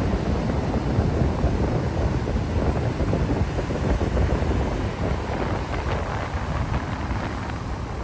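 Ocean surf breaking and washing up a sandy beach in a steady rush. Wind buffets the microphone and adds a low rumble.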